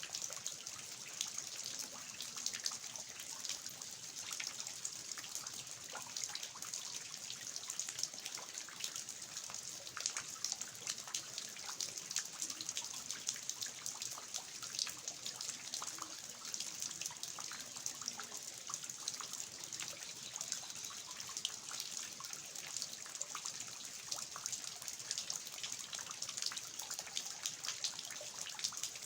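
Steady rain with water dripping and trickling from the eaves: a dense, even patter of drops, with no let-up.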